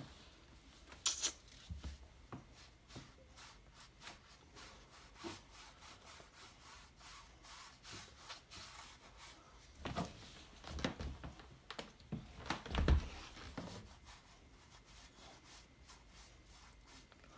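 A foam pad rubbed and dabbed on a painted canvas: a run of short scrubbing strokes, with a few louder ones about a second in and again around ten to thirteen seconds in.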